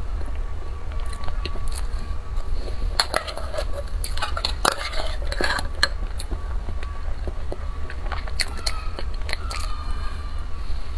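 Metal spoon clicking and scraping against a tin can as soft cake is scooped out, with biting and chewing sounds. The clicks are busiest in the middle, over a steady low hum.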